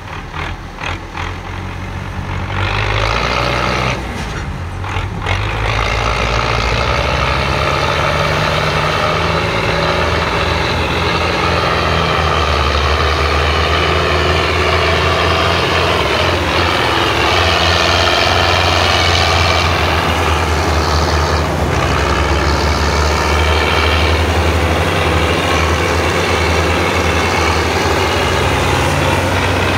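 Belarus tractor's diesel engine labouring under a heavy load as it hauls a fully loaded trolley, revving up about two to three seconds in with a brief dip soon after. It then holds a loud, steady working note whose pitch rises and falls.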